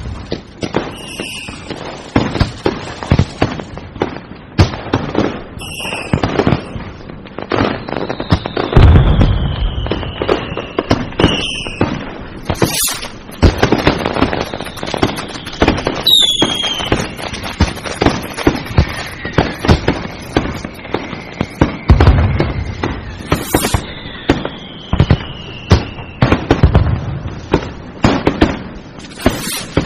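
Fireworks going off without a break: rapid crackling bangs, a few deep booms, and several long whistles that fall slowly in pitch.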